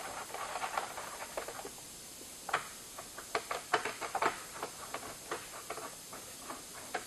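Small, irregular metallic clicks and taps as M5 screws are fitted through a metal bracket and turned into a TV wall mount, with the clicks coming more often from about two and a half seconds in.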